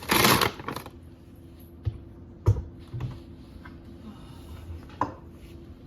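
Flour and kitchen utensils handled while measuring and sifting flour: a short, loud rustling hiss at the start, then a few light knocks and clicks over a faint steady hum.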